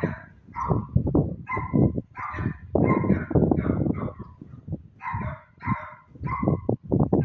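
Small dogs barking over and over, about two barks a second, over low bumping noise.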